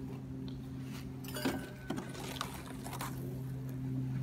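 A steady low mechanical hum, with a brief faint squeak about a second and a half in and a few scattered light clicks and scuffs.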